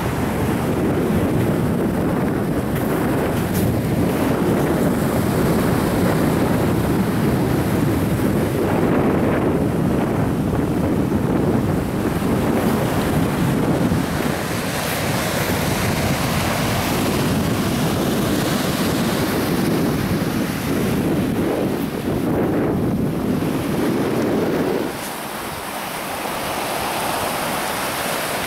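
Wind buffeting the microphone over small waves washing onto a sand-and-pebble beach. The low wind rumble drops away near the end, leaving the surf.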